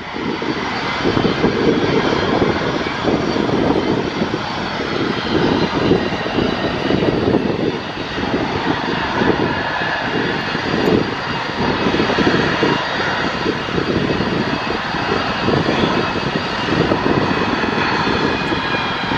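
Boeing 727-200 freighter's three Pratt & Whitney JT8D turbofans at takeoff power as the jet starts its takeoff roll. A loud, steady jet roar with a fluttering low rumble and several steady whining tones over it.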